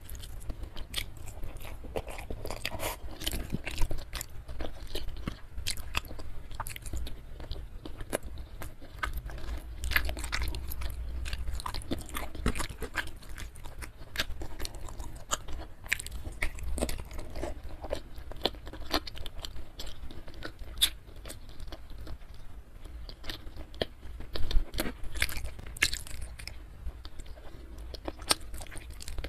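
A person chewing and crunching food close to the microphone, with many sharp, irregular wet mouth clicks and smacks.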